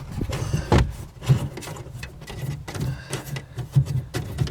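Hand-spun plastic retaining nut on a tail light assembly being unscrewed by fingers from the inside of a car trunk, with scattered plastic clicks and knocks as it is handled.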